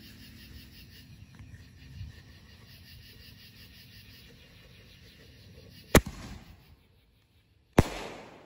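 Black Cat Black Box consumer artillery shell firing: a sharp launch bang about six seconds in as it leaves its mortar tube, then, under two seconds later, the shell bursts with a second loud bang followed by a fading rumble.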